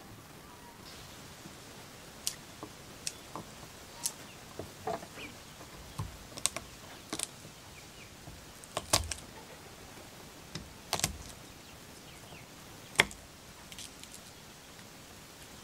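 Kitchen knife knocking against a round wooden chopping block while cutting garlic cloves: a dozen or more sharp knocks at uneven intervals, the loudest about thirteen seconds in.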